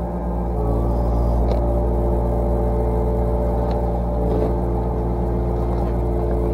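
Yanmar SV40 mini excavator's diesel engine running steadily, with a few faint knocks.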